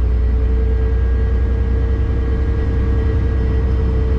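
Semi-truck cab interior at road speed: the diesel engine's steady low drone and road noise, with a steady mid-pitched hum running through it.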